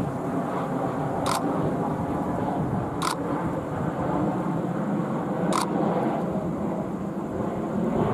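Steady rumble of an Airbus A320 airliner's jet engines on landing approach, with a camera shutter clicking three times: about a second in, at three seconds and at five and a half seconds.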